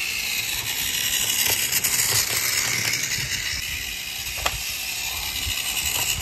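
Battery-powered TOMY Motor Road & Rail toy engine running along plastic track: a steady motor and gear whir with clacking and a few sharp clicks from the wheels over the track.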